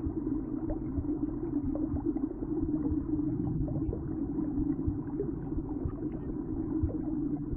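Steady low rumbling ambience with a hum in it and small crackles, the sound-design drone of an animated journey through the bloodstream.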